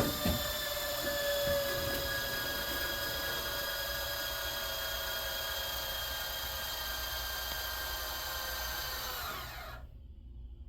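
Smoke damper actuator motor running steadily with a whine, driving the damper back open after the alarm is reset; near the end the pitch falls as the motor winds down and stops.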